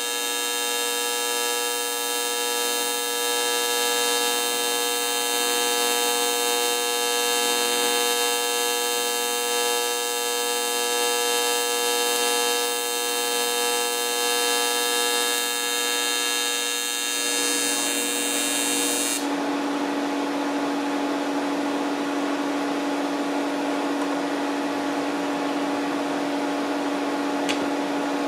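TIG welding arc from a Miller Dynasty 300 buzzing steadily as a small weld puddle forms. About two-thirds of the way through, the buzz stops abruptly and a lower steady hum with a hiss remains. A small click comes near the end.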